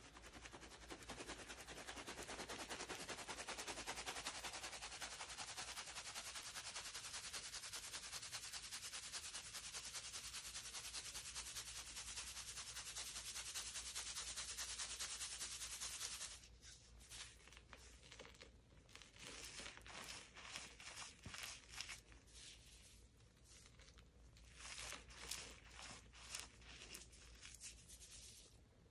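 Crushed dyed gym chalk being shaken through a stainless-steel mesh sieve: a fast, steady patter for about sixteen seconds. It then breaks into scattered taps and rattles as the dyed chunks left in the sieve are knocked about.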